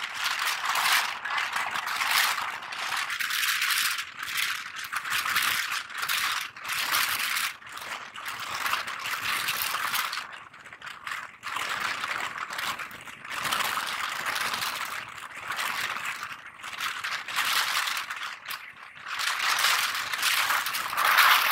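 Moving train heard from an open carriage window: a loud, continuous rattling clatter that surges and dips irregularly.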